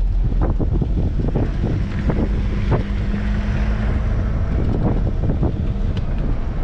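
Vehicle driving on a rough, wet dirt road, heard from inside the cabin: a steady low engine and tyre rumble with frequent short knocks and rattles as it bumps over the ruts.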